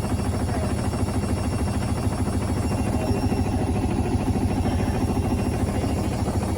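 Hoover washing machine running with a steady low hum and a fast, continuous rattling knock from the drum: the sign of broken shock absorbers.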